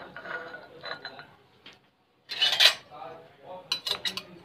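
A plastic serving spoon scraping and knocking against a glass baking dish as soft dessert is scooped out, with a louder scrape a little past halfway and a few sharp clicks near the end.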